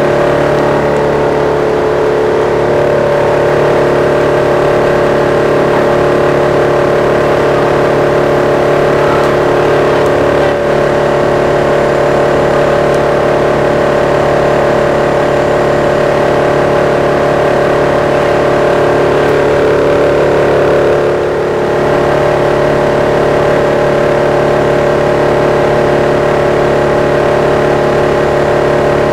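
A wood chipper's engine running steadily at speed.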